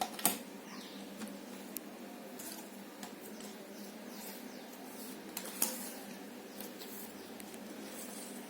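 Jigsaw puzzle pieces being handled and fitted on a table: scattered light clicks and taps, with a sharper click just after the start and another about five and a half seconds in, and brief soft scrapes of pieces sliding in between.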